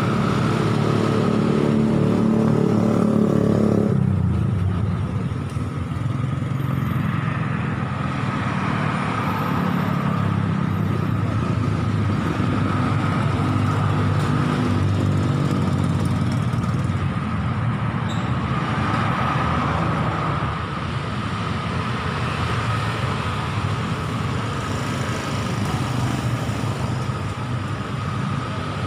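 Road traffic: motorcycles and cars passing on a city street, with one engine running loud and close for the first few seconds before it fades into the steady traffic.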